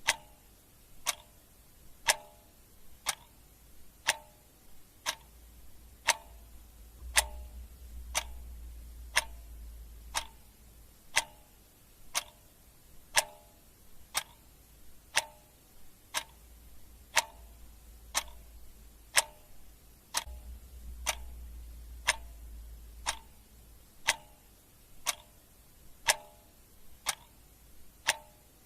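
Clock ticking steadily, about one tick a second, over a faint low hum.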